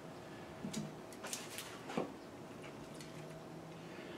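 A few light clicks and taps of a bolt and small metal parts being handled, the sharpest about two seconds in, over a faint steady low hum.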